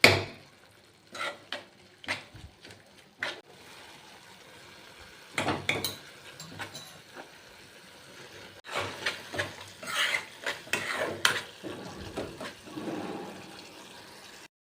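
Metal spoon knocking and scraping in a cooking pan, in irregular clusters of clinks over a faint hiss; it cuts off abruptly near the end.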